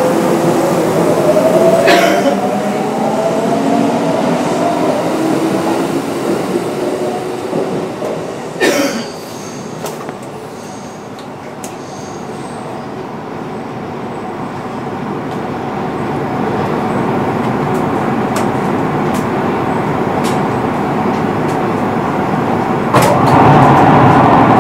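Kintetsu 9820 series electric train heard from on board, its Mitsubishi IGBT-VVVF inverter and traction motors whining in several tones that glide upward over the first several seconds over the rumble of the wheels. A knock comes about two seconds in and another near nine seconds. After that the running noise dies back, builds steadily again and turns suddenly louder near the end.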